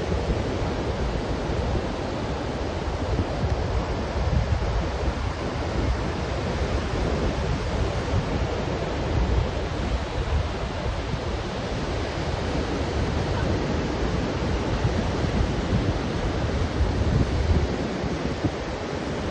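Mediterranean surf washing onto the beach in a steady rush, with wind buffeting the microphone in low gusts.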